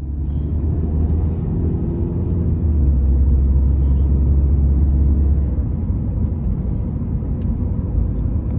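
Low rumble of a car driving, heard from inside the cabin, strongest for the first five seconds and then easing a little.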